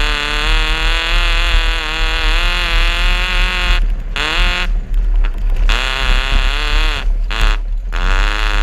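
Suzuki Vitara 2.0 engine revving under load, its pitch rising and falling, with several brief breaks in the sound around four to five seconds in and again about seven seconds in.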